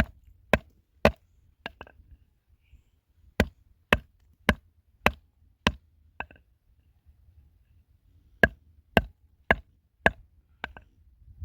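Chopping with a heavy blade striking down onto a wooden block or board. The sharp strikes come about two a second, in three runs of four to six with short pauses between.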